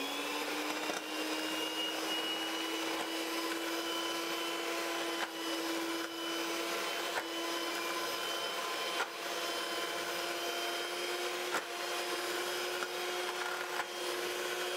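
Handheld electric mixer whipping cold 33% cream in a stainless steel saucepan: a steady motor whine whose pitch creeps slightly higher throughout. The cream is being beaten up to stiff peaks.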